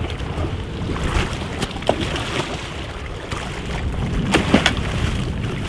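Water churning and splashing against a fishing boat's hull as a hooked tuna thrashes at the surface alongside, over the low rumble of the boat's engine. A few sharp splashes or knocks stand out about four and a half seconds in.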